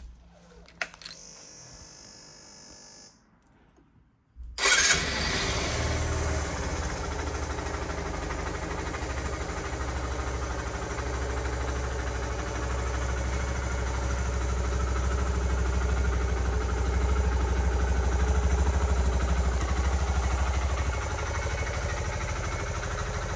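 Suzuki RV125 VanVan's air-cooled 125cc single-cylinder engine starting up. After a few clicks, it fires about four and a half seconds in and settles into a steady idle, somewhat louder for a few seconds in the middle.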